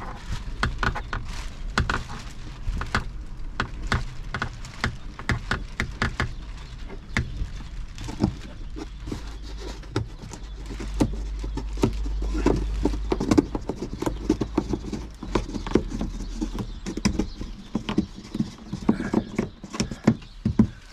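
Wind buffeting the microphone with a low rumble that gusts stronger about ten to thirteen seconds in. Over it come many small irregular clicks and taps of hands working a metal rod and plastic fittings of a windscreen cab blind.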